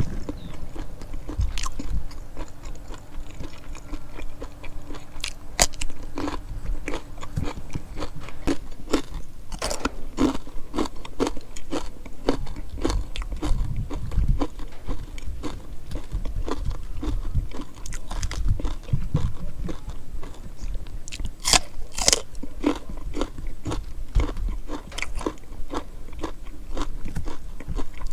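A person chewing and biting food close to the microphone, with a run of irregular crisp crunches.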